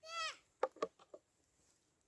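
A child's short, high-pitched vocal cry that rises and falls, followed by two sharp clicks and a few fainter ones.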